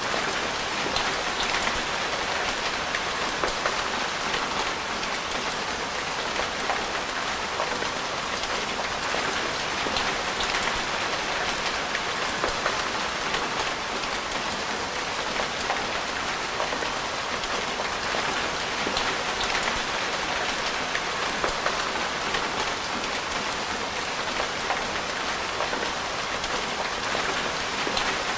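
Steady rain falling, an even hiss dotted with many small drop hits.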